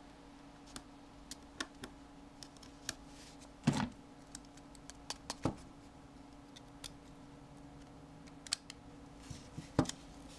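Scattered small clicks and taps of a precision screwdriver and small metal parts on an opened iPhone 4 during reassembly. A louder clack comes a little under four seconds in, and another near the end.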